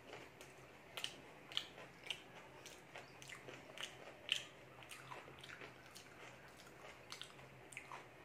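Close mouth sounds of a person eating: chewing and wet lip smacks, heard as a run of short, irregular clicks, a few a second.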